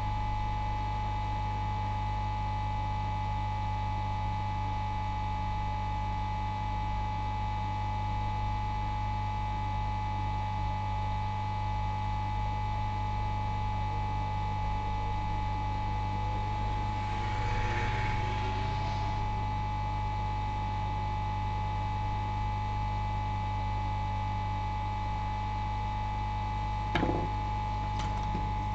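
Steady electrical mains hum with a constant high tone over it, a brief hiss about two-thirds of the way through, and two sharp clicks near the end.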